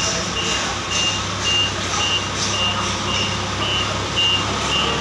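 Forklift reversing alarm beeping about twice a second as the forklift backs up, over the steady hum of its engine.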